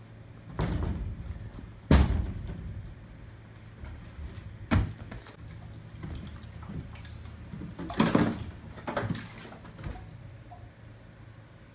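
Thumps and knocks of a small pet monkey dropping from curtains to a wooden floor and scrambling up a wooden cabinet: a sharp, loud knock about two seconds in, another a little before the middle, and a cluster of bumps near the end, over a low steady hum.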